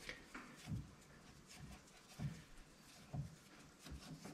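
Faint, soft, low thumps, about four at irregular intervals, with a few light ticks between them.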